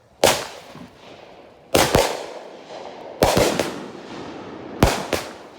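A 49-shot High Faultin firework cake firing: four loud shots about one and a half seconds apart, each followed almost at once by a second sharp crack, with a fading hiss after each.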